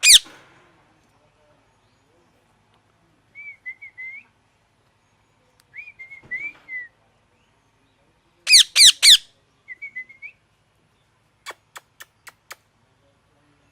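Parrot calling: a loud falling screech right at the start, then short soft whistled chirps, then three loud screeches in quick succession about eight and a half seconds in. Four sharp clicks follow near the end.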